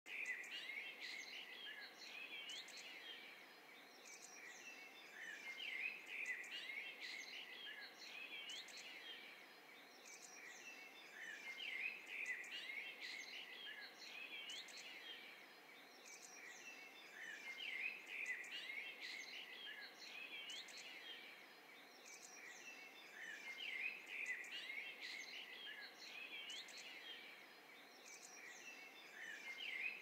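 Forest birdsong: several songbirds chirping and warbling at once, faint and overlapping, swelling and easing about every six seconds.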